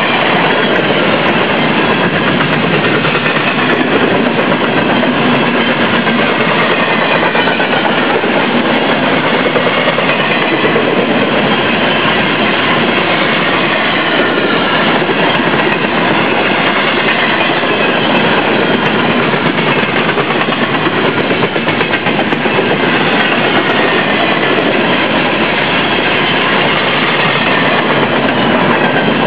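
Empty intermodal well cars of a freight train rolling past close by, with a loud, steady noise of steel wheels on rail.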